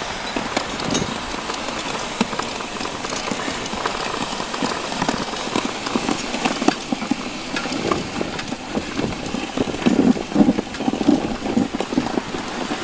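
Homemade pedal-powered snow plow pushing snow along a paved driveway: the plow blade scraping and snow crunching under the tyres, with irregular clicks and knocks throughout and some heavier thumps in the last few seconds.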